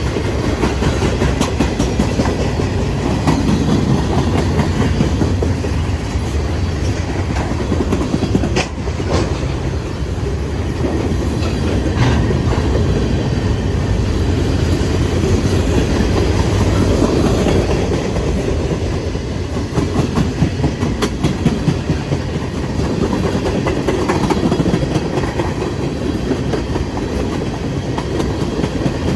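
CSX freight train cars rolling past, a steady rumble of wheels on rail with occasional sharp clicks as wheels cross rail joints.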